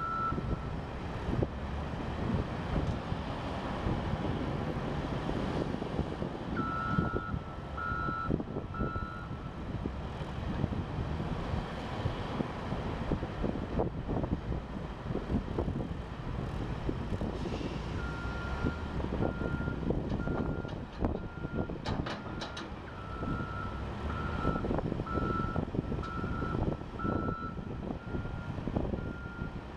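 Volvo wheel loader's diesel engine running under load while it works dirt, with a backup alarm beeping in spells. There are four beeps about seven seconds in, then a long run of regular beeps from about eighteen seconds in, and a couple of sharp clacks around twenty-two seconds in.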